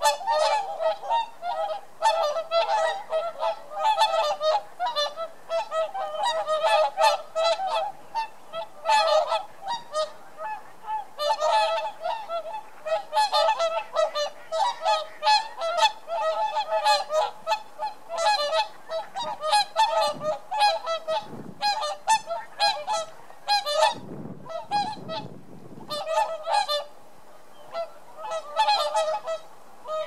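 A flock of whooper swans calling: many short, overlapping honking whoops in a near-continuous chorus, easing into a brief lull about three-quarters of the way through.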